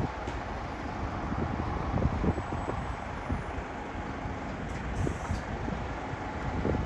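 Highway coach's diesel engine running with a steady low rumble.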